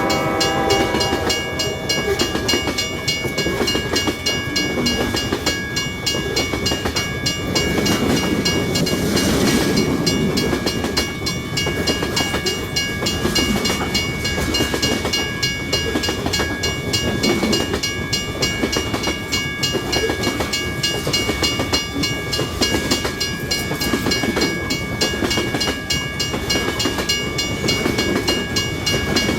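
A long freight train's cars rolling past, with a steady rumble and dense wheel clatter over the rail joints. Steady thin high tones carry on throughout, and the tail of a horn fades out about a second in.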